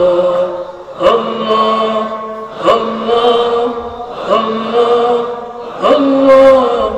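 A man chanting Sufi dhikr into a microphone: a short devotional phrase repeated about every one and a half seconds, each phrase starting sharply and held on a steady pitch.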